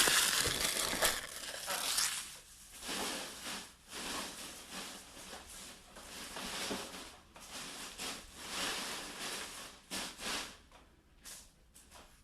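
Irregular rustling and crinkling of packaging as a trading card box is opened and its contents handled, loudest at first and fading toward the end.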